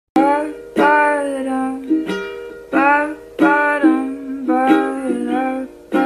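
Background music on a ukulele-like plucked-string instrument, chords struck sharply at a steady pace and fading after each strike, with a melody line over them.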